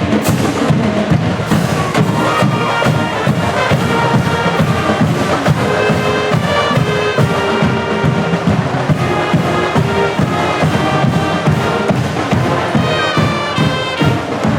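Brass band music with drums: trumpets and trombones playing held notes over a steady, fast beat.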